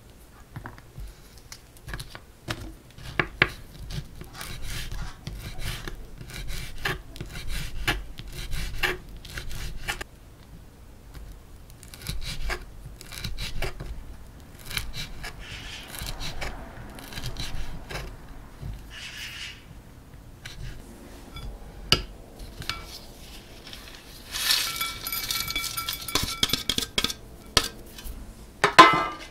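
Small paring knife slicing and chopping dried jujubes and nuts on a wooden cutting board: irregular taps and knife strokes. Near the end, a louder scraping with a ringing, glassy tone, then a sharp knock.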